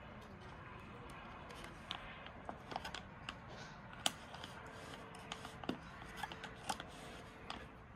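Dog sniffing and nosing through wood-chip mulch, with irregular small crackles and clicks.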